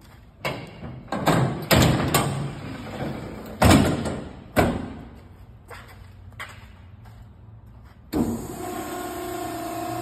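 The steel loading gate of a Max-Pak MP48HD vertical baler is pulled down and shut with a series of loud metal clanks and rattles. About eight seconds in, the baler's 3-phase electric motor starts and runs with a steady hum.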